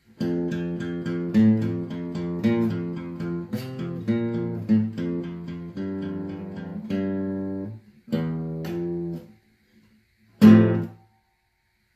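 Outro music on guitar: a quick run of picked notes with a short break, ending in a single strummed chord after a brief pause near the end.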